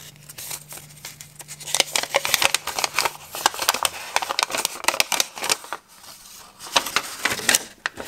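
A folded paper instruction leaflet being unfolded and handled: crisp rustling and crinkling of paper, going quieter for a moment about three-quarters of the way through.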